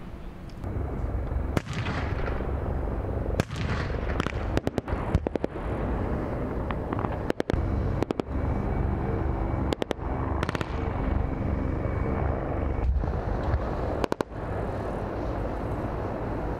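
Gunfire and blasts during an amphibious landing exercise: a string of sharp bangs, some single and some in quick clusters, over a steady low rumble of engines.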